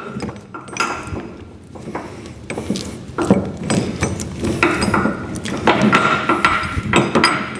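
Steel tie-down chain clinking and a chain binder being handled and hooked onto it: irregular metal clicks, clinks and knocks.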